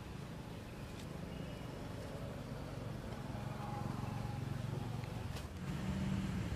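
Low, steady engine hum of a vehicle, growing slightly louder, with a couple of brief clicks.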